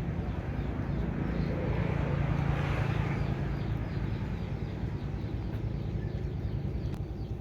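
Engine noise of a passing vehicle: a steady low hum that swells to a peak about two and a half seconds in, then fades.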